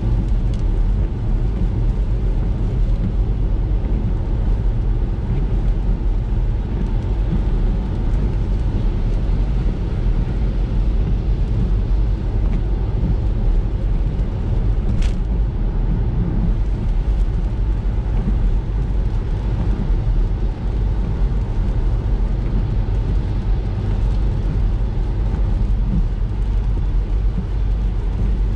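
Ford EcoSport driving on a wet road in the rain: a steady rumble of engine and road noise with tyre hiss. A single sharp click about halfway through.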